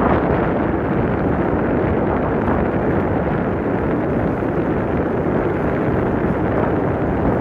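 Steady, loud wind buffeting the microphone, with no breaks or distinct events.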